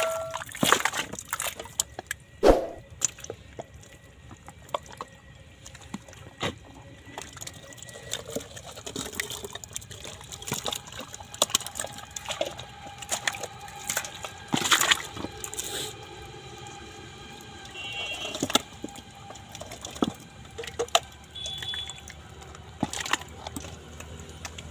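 Thick wet mud squelching and sloshing as hands dig and grope through it, with irregular sharp wet slaps and knocks.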